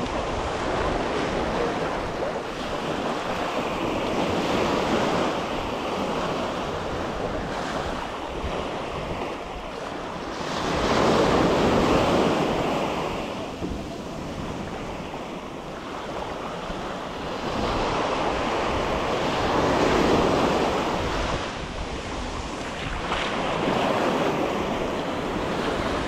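Surf breaking and washing up a sandy shore, swelling and ebbing every several seconds, loudest near the middle and again about three-quarters through. Wind buffets the microphone with a low rumble.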